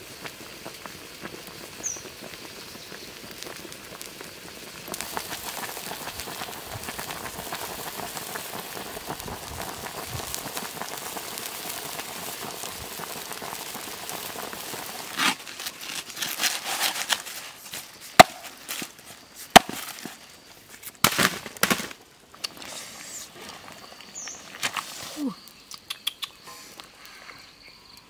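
Wood fire crackling and popping under a wok, with a few sharp loud pops in the second half. A steady hiss of water boiling in the wok runs through the middle stretch.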